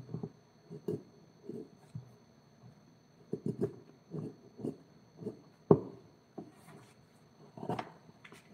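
Hand work on a wooden carving: irregular short scrapes and taps of a tool on wood, about one or two a second, with one sharper knock a little past halfway.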